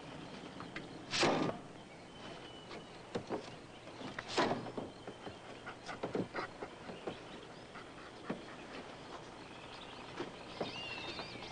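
A small terrier barks twice, short sharp barks about three seconds apart, with scattered small knocks and a thin chirping sound near the end.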